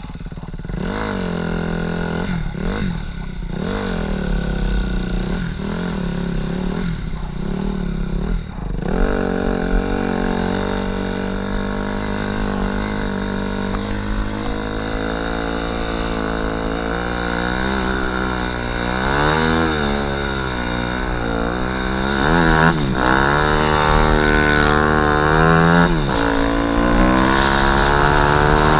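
Dirt bike engine on a snow bike conversion, revved in short blips for the first several seconds, then running under throttle with its pitch rising and falling as the bike is ridden; it grows louder near the end.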